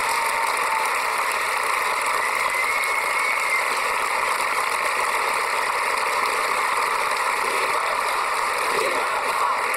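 A large outdoor crowd applauding steadily.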